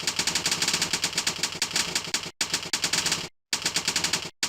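Fast typing on a computer keyboard: a rapid, steady run of key clicks, broken by short pauses about two and a half and three and a half seconds in.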